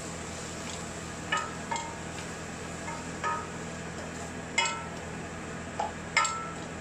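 Wooden spatula stirring a dry leaf-and-coconut stir-fry in a stainless steel kadai, knocking against the pan about six times with short ringing clinks, over a steady low hum.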